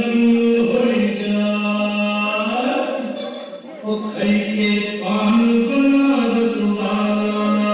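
A male voice singing a song in long held notes over music, with a short break about three and a half seconds in.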